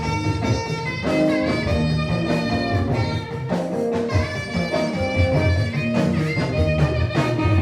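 Instrumental background music: long held melody notes over a bass line.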